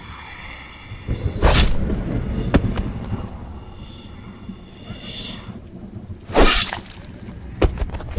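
Horror sound effect of crashing, shattering impacts: a heavy crash about one and a half seconds in, a sharp knock a second later, a longer crash past six seconds and a last sharp hit near the end. A high steady ringing tone sounds underneath and stops about five and a half seconds in.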